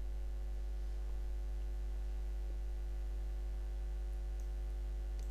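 Steady low electrical hum with evenly spaced overtones, and a couple of faint high ticks near the end.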